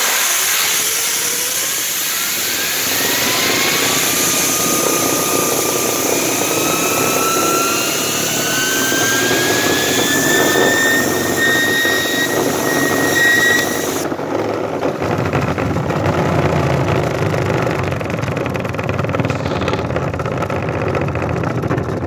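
Pressure-washer spray hissing against a plastic lawnmower wheel and spinning it up: a whine climbs steadily in pitch for about twelve seconds as the wheel speeds up on its axle. The spray cuts off about two-thirds of the way through, and the freely spinning wheel carries on with a lower rumble.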